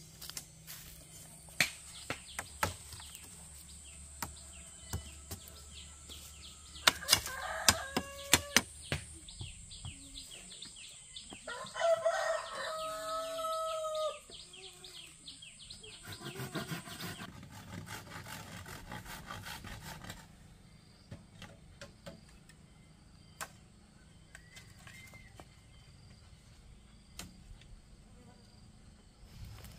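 Sharp knocks and clatters of bamboo pieces being handled, loudest about seven to nine seconds in, and a rooster crowing once for about two seconds near the middle. A steady high insect buzz runs under them and stops a little past halfway.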